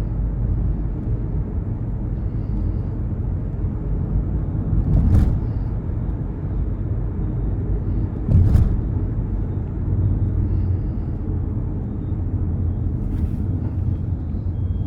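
Steady low road and engine rumble heard inside a moving car's cabin, with two short knocks about five and eight and a half seconds in.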